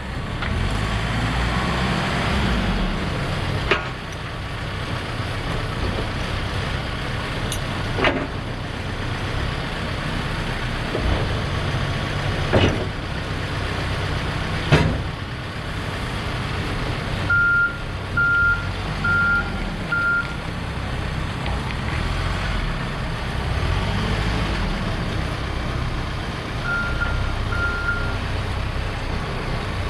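Case 590 Super N backhoe loader's diesel engine running steadily while the machine is worked, with a few sharp clunks. Its reversing alarm beeps four times a little past halfway, then twice more near the end.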